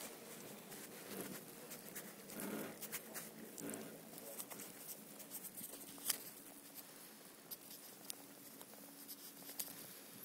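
Faint rustling and scattered small clicks from a handheld camera being handled, with one sharper click about six seconds in and a weak steady hum underneath.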